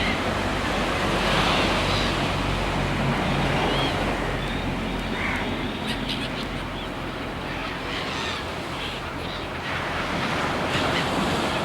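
Steady rushing noise of water and wind, with a few faint short bird calls scattered through it.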